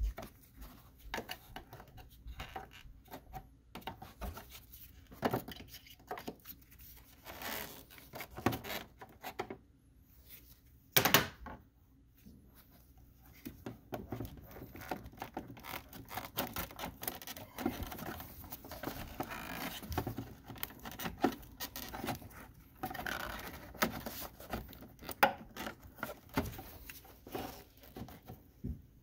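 Hands working a car's engine-bay fuse box and its wiring: scattered plastic clicks, rustles and scrapes as tabs are pried and the box and harness are handled. One sharper snap comes about eleven seconds in.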